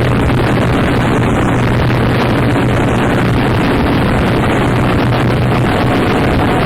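Harsh noise music from a noise cassette: a loud, unchanging wall of dense distorted noise with a steady low hum underneath.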